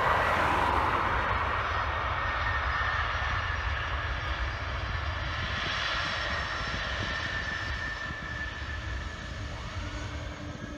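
Twin turbofan engines of a DHL cargo jet running at high power on the runway: a broad roar with a high whine over it, loudest at first and slowly fading as the aircraft rolls away.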